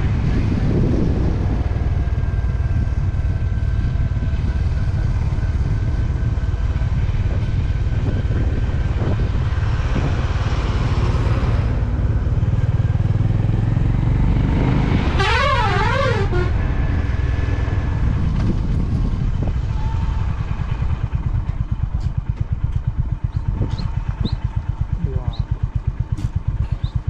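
Motorcycle engine running while riding, a steady low drone. About halfway through, a vehicle horn sounds for about a second with a warbling, up-and-down pitch. Near the end the engine's beat becomes an even, distinct pulse.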